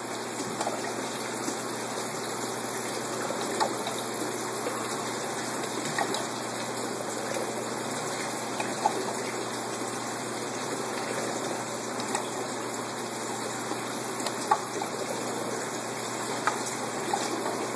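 Steady rush of water circulating through an aquaponics system's pump and PVC plumbing, with a few faint clicks.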